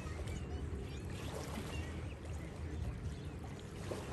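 Wind rumbling on the microphone over a steady outdoor hiss, with a few faint bird chirps in the first couple of seconds.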